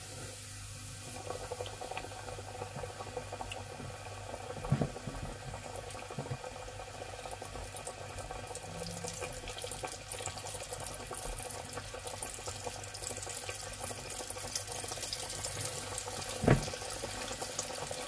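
Chicken wings deep-frying in hot oil in a stainless steel pot: a steady crackling sizzle that grows busier, with two brief knocks, one about five seconds in and one near the end.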